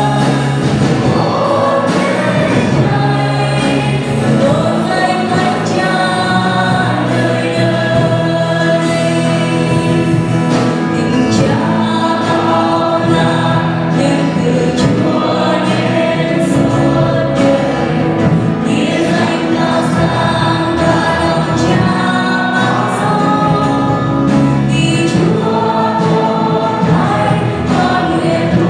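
Live contemporary worship song: a woman singing lead with backing voices, over acoustic guitar, bass and drums.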